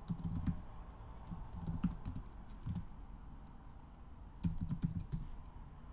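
Typing on a computer keyboard: three short runs of keystrokes with pauses between them.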